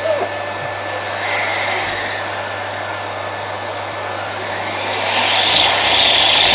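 Household vacuum cleaner running, quieter through the middle as its suction changes, then its high whine coming back in over the last second or so.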